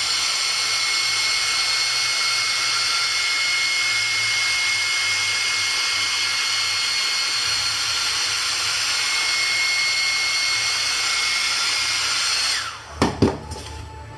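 Small handheld hair dryer running steadily, a loud rushing hiss with a high whine, heating a tablet's front to soften the screen adhesive. It spins up at the start and winds down after about twelve and a half seconds, followed by two sharp knocks.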